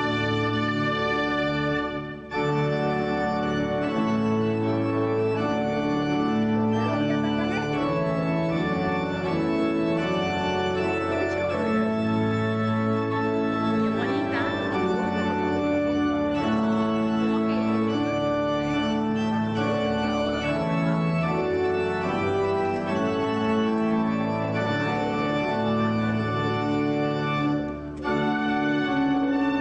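Processional music on a church organ: slow, held chords that change every second or so. The sound drops out briefly twice, about two seconds in and near the end.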